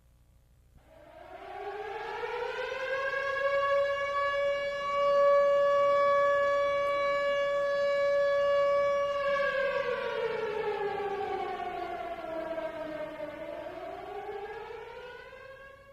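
Air-raid-style siren wail. It rises in pitch over the first few seconds and holds one steady tone, then slowly falls away and starts climbing again near the end.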